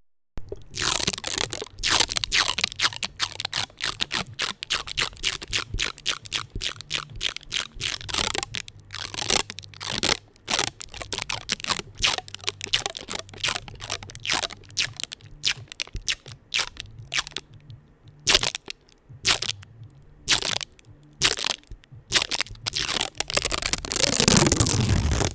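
Adhesive tape on a microphone being worked fast and aggressively, stuck down and peeled off in quick succession, giving a dense run of rapid crackles and rips. Near the end comes a longer, smeared rip.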